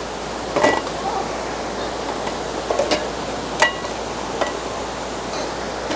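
Three sharp metallic knocks, each with a short ring, about half a second, three seconds and three and a half seconds in, over the steady rush of a flowing river.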